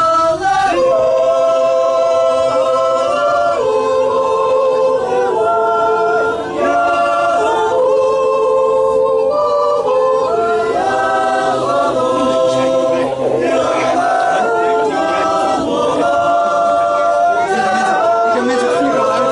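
Choral music: an a cappella choir singing slow, held chords that change every second or so.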